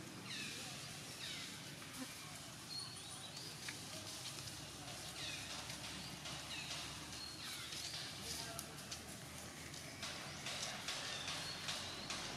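A series of short, high-pitched animal calls, each falling in pitch, repeating every second or two. Light clicks and rustles come in during the last couple of seconds.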